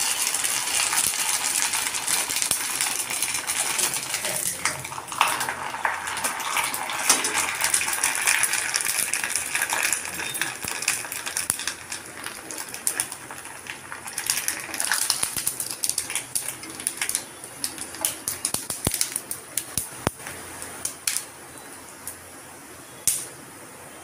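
A sago papad deep-frying in hot oil in a kadai, sizzling and crackling densely as it puffs up. About halfway through the sizzle thins to scattered pops, with sharp clicks of steel tongs against the pan.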